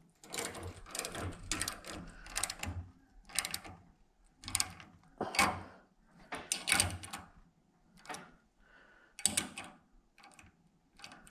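A wrench tightening a nut down hard on a bolt through a steel gear and stacked fender washers held in a bench vise: repeated short metallic clicks and rattles, roughly one or two a second, uneven in strength.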